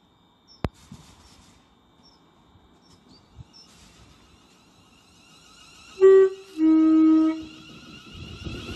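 ScotRail Class 380 electric multiple unit sounding its two-tone horn about six seconds in: a short higher note, then a longer lower one, as it draws along the platform. The train's running noise and a high electric whine then build as it comes closer near the end.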